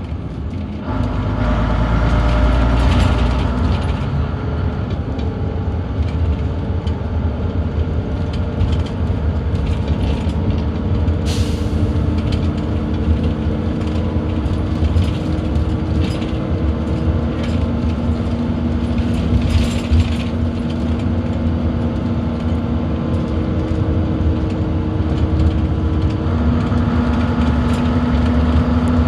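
Leyland Atlantean bus with Alexander body heard from inside the saloon. Its diesel engine pulls away about a second in and runs under load, with the engine note stepping twice, body and fittings rattling, and a short hiss about eleven seconds in.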